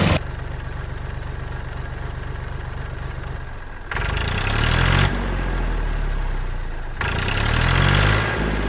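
A vehicle engine idling with a steady low hum, revving up briefly about four seconds in and again about seven seconds in.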